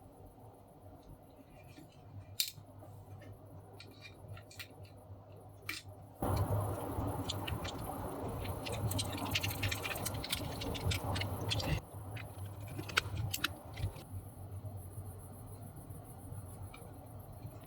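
Scattered small clicks and taps of work on a workbench over a low steady hum. From about six seconds in, a louder steady rushing noise with many clicks runs for about six seconds, then cuts off suddenly.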